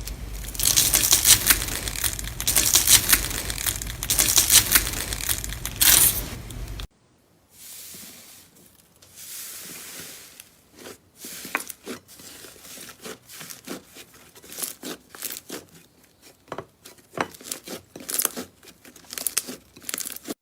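Slime being squeezed and stretched by hand, making dense, loud crackling. About seven seconds in it cuts abruptly to quieter, scattered clicks and pops.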